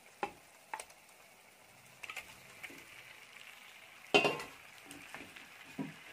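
Raw chicken pieces tipped from a steel bowl into a hot clay pot of fried onions and ginger-garlic paste, with a few knocks of bowl and wooden spatula against the pot. A sizzle sets in about two seconds in, and a loud clatter comes about four seconds in.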